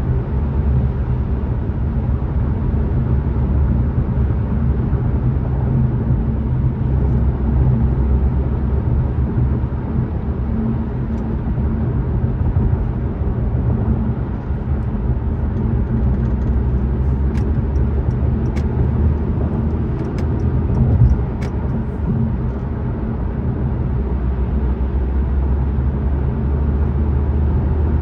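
A car driving on a freeway: steady low road and engine drone, with a few faint clicks in the middle.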